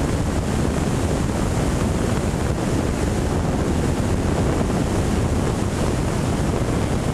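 Steady, loud wind buffeting the microphone of a camera mounted on a radio-controlled model airplane in flight, a deep, even rush of air noise with no clear engine tone.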